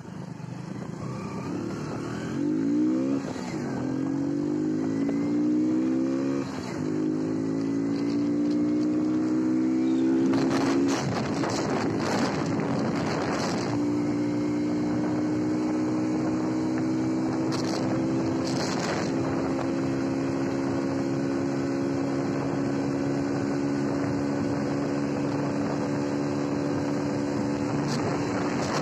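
Hero Splendor Plus motorcycle's 97cc single-cylinder four-stroke engine accelerating hard through the gears: its note climbs and drops back at each upshift, about 3.5, 6.5 and 11 seconds in. It then holds a high, nearly steady drone, creeping up slowly as the bike nears its top speed of about 90 km/h, with wind buffeting the microphone in gusts.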